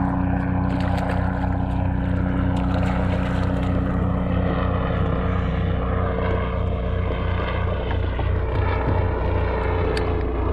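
Helicopter flying over: a steady engine and rotor drone with a fast, regular pulsing beat in its low end.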